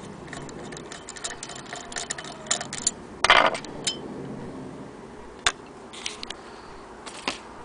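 Small metallic clicks and ticks as a screwdriver and the wooden crank handle are worked loose on the cast-iron handwheel of a Willcox & Gibbs hand-crank sewing machine, with a louder clatter about three seconds in and a few scattered clicks after.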